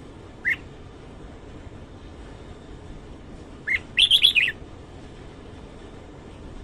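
Red-whiskered bulbul singing: one short note about half a second in, then a quick phrase of several high notes just under four seconds in.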